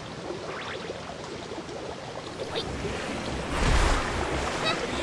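Cartoon sea sound effect: water rushing and lapping, swelling to a louder surge of waves with a low rumble about three and a half seconds in.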